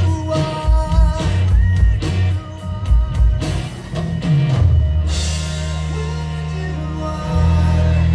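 Live rock band playing: drum hits and a sung melody over guitars and keyboards, then about four seconds in a bass slide down into a cymbal crash and long held chords.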